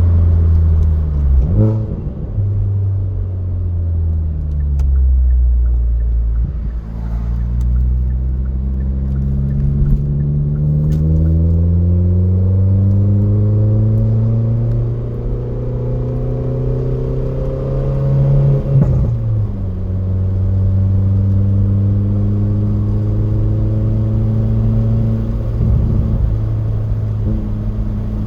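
Car engine running. Its pitch dips and recovers, then climbs slowly for about twelve seconds before dropping sharply, and holds steady near the end.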